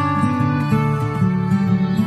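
Background music: plucked guitar with a gentle melody.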